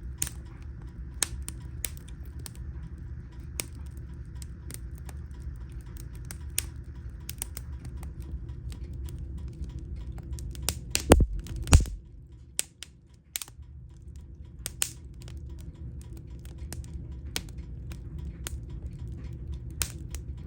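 Wood fire crackling in a fireplace: irregular sharp pops and snaps over a steady low rumble, with two louder thuds about eleven seconds in.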